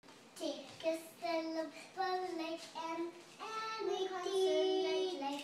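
A small child singing a tune on her own, with no accompaniment, in a string of held notes broken by short pauses.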